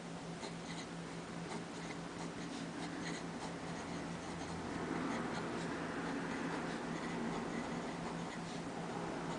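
Pilot Plumix fountain pen's medium stub italic steel nib scratching faintly across paper as a line of handwriting is written, with small ticks as the nib lifts and touches down between strokes.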